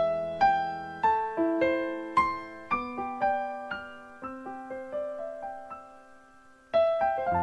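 Background piano music: a gentle melody of single notes, each struck and left to ring, thinning out and growing quieter before a fuller chord comes in near the end.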